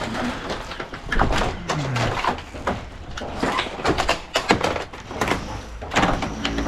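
Irregular clatter of knocks and bangs, several sharp impacts a second.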